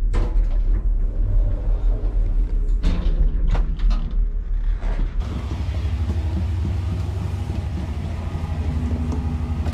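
Ship's elevator car rumbling low as it rides up, with a few knocks and rattles. About five seconds in this gives way to a steadier, evenly pulsing hum.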